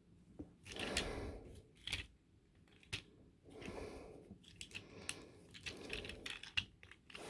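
Faint, irregular clicks and rustles of a small plastic transforming toy being handled, its hinged parts snapping and rattling as they are folded and pulled.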